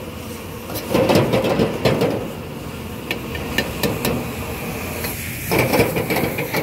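Two bursts of rapid knocking strikes, about a second in and again near the end, with a few sharp single clicks between them over steady background noise.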